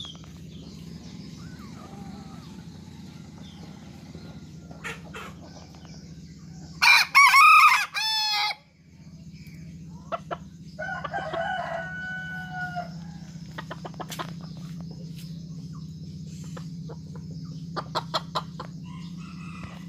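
A white junglefowl × serama–kate cross rooster crows loudly once about seven seconds in, a broken crow in several parts. A fainter, shorter crow follows a few seconds later, over a steady low hum.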